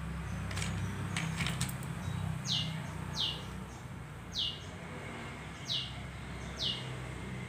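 A small bird chirping: five short high chirps, each falling in pitch, spaced about a second apart. A few clicks in the first two seconds, over a steady low hum.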